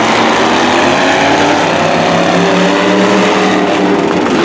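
Engines of several demo race cars running at speed around a speedway oval. Their overlapping pitches slowly rise and fall as the cars go round.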